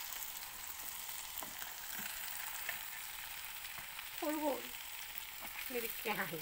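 Vegetables sizzling steadily in a hot pan as dry instant-noodle cakes are added and pushed around with a spatula. Two brief voice-like sounds come about four and six seconds in.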